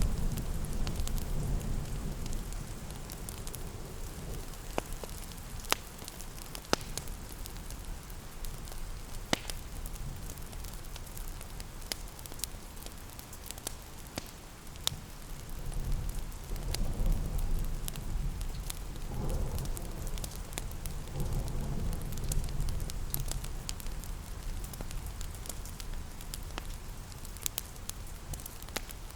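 Wood fire crackling, with scattered sharp pops, over steady rain. A low rumble swells at the start and again from about halfway to two-thirds through.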